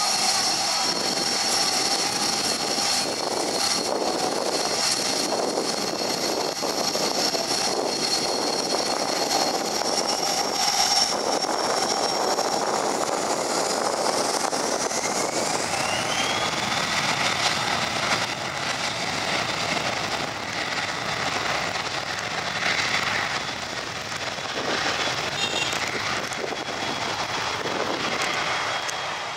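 Cessna Citation Sovereign's twin Pratt & Whitney PW306C turbofan engines running with a steady high whine, which rises in pitch about halfway through as the engines spool up to takeoff power.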